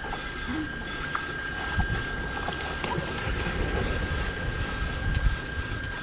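Slowed-down outdoor audio: a low, steady rumble of wind and lake water, with children plunging off a floating foam mat and splashing into the water, stretched into a deep wash.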